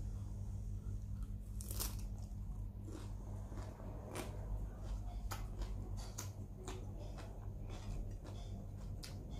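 Close-up chewing of something crisp, a raw Chinese cabbage leaf, with irregular sharp crunches, the loudest about two seconds in, over a steady low hum.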